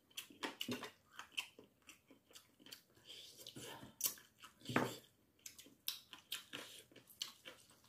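A person chewing braised chicken close to the microphone: many short, irregular mouth clicks and smacks, with a louder one near the middle.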